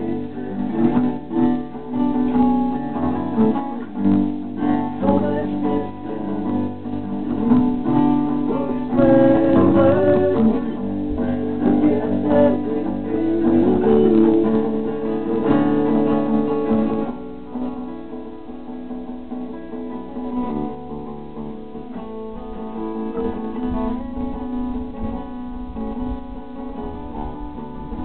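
Acoustic rock played live: acoustic guitars strummed over an acoustic bass guitar, with a man singing. About 17 seconds in, the voice falls away and the music gets a little quieter, leaving the guitars and bass playing.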